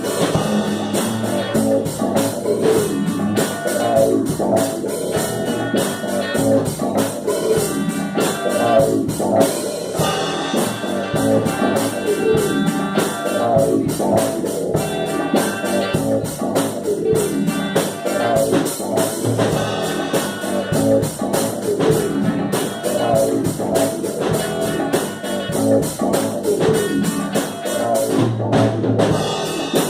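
Instrumental psychedelic rock jam: a drum kit keeping a steady beat under electric guitars and synthesizer.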